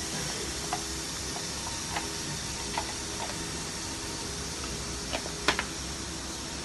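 Steady hum of a ceiling fan running overhead, with a few faint clicks and taps from small things being handled, the sharpest about five and a half seconds in.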